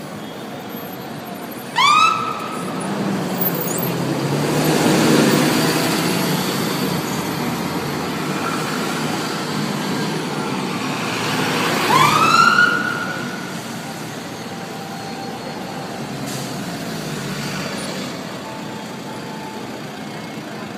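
Fire engine siren giving two short rising whoops about ten seconds apart, the second the loudest. Between them the truck's engine and tyre noise swell as it drives past on a busy street.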